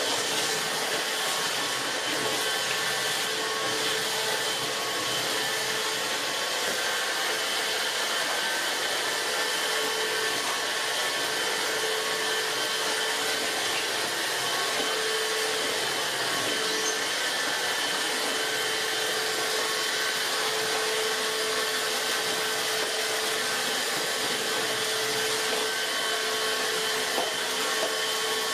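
Dibea F6 cordless stick vacuum running steadily as its soft carbon-fibre roller brush cleans a hard floor. A constant motor whine sits over the rush of air.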